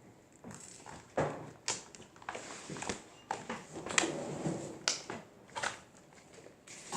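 Irregular handling noises: about a dozen sharp clicks and taps with soft rustles between them, as fluffy slime and its containers are handled.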